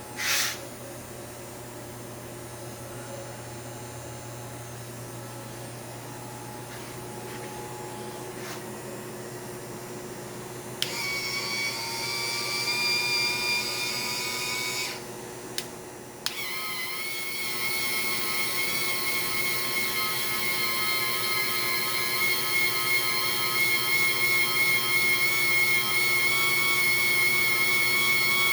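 Small electric motor and gearbox of a linear actuator whining as it drives a drill press table. It starts after about eleven seconds, stops briefly, then runs again steadily at a slightly lower pitch. Before that there is only a steady background hum, with a short burst of noise right at the start.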